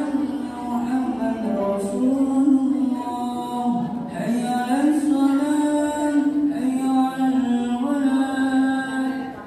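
Vocal music: a single voice singing slow, long-held lines that bend and glide in pitch.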